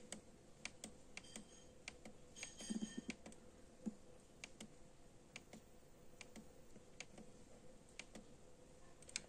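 Near silence from a JVC KD-DB95BT DAB+ car radio on weak stations: faint, scattered clicks over a low steady hum, with a short cluster of clicks about three seconds in.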